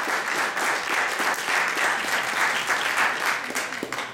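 Audience applauding steadily, fading out right at the end.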